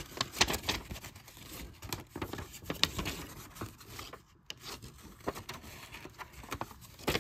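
Paper rustling and scraping with small irregular clicks as a folded paper coupon insert is handled and flipped open.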